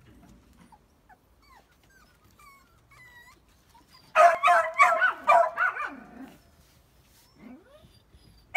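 Puppies whimpering faintly with thin high whines. About four seconds in comes a loud, rapid run of high-pitched yips and barks lasting about two seconds, then another yip right at the end.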